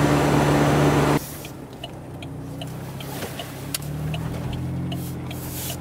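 Car engine and road noise inside the cabin at highway speed, cutting after about a second to a much quieter low engine hum as the car rolls slowly, its pitch rising slightly midway, with a few faint light ticks.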